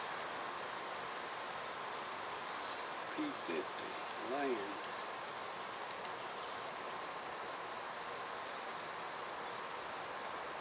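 Steady high-pitched chorus of singing insects, with a regular ticking pulse, a few a second, running on top.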